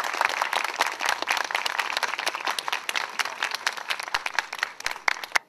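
Crowd applauding: many hands clapping densely, thinning out near the end before it cuts off.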